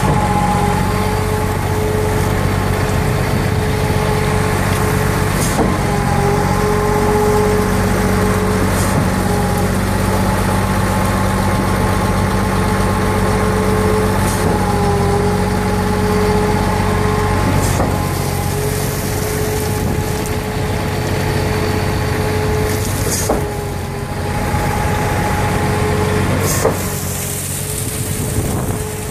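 Scania truck-mounted Putzmeister concrete pump running: a steady diesel engine drone with a whining tone over it that dips briefly every eight or nine seconds, with a few sharp clunks. Near the end, water splashes in the pump's hopper.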